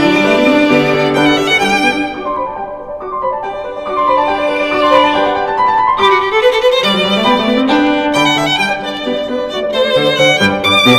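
Background music led by a violin melody with vibrato, over a lighter accompaniment.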